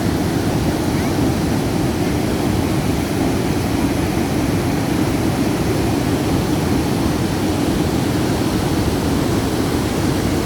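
Athirappilly waterfall in heavy, forceful flow: a loud, steady rush of falling water, deepest in the low range.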